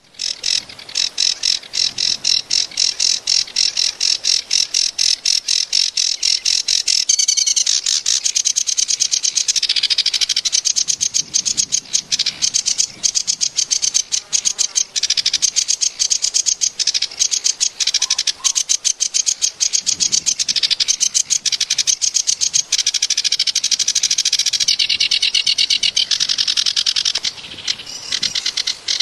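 A small bird calling in a fast, unbroken run of short high chirps, several a second.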